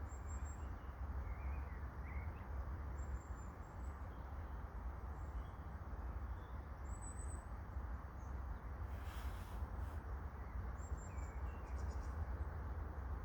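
Outdoor ambience: a steady low rumble and hiss, with faint, short, high bird chirps scattered through it. There is a brief rustle about nine seconds in.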